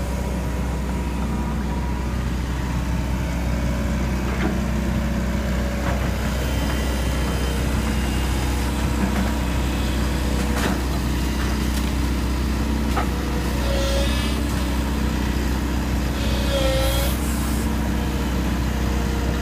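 Excavator's diesel engine running steadily with a deep hum while its boom and bucket work, with occasional knocks and two short squeals, one about two-thirds through and one near the end.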